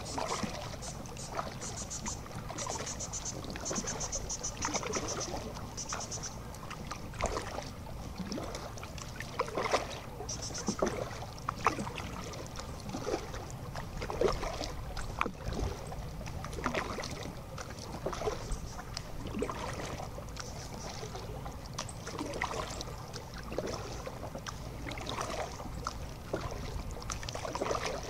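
Kayak paddle strokes dipping and splashing in calm water, irregularly every second or two, over a low wind rumble on the microphone. A high, rapid pulsing trill sounds a couple of seconds in and again briefly near ten seconds.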